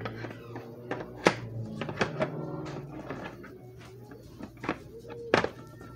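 Hollow plastic raptor toy's leg and body knocking and clicking as the leg is worked into its socket: about five sharp knocks, over a low steady hum.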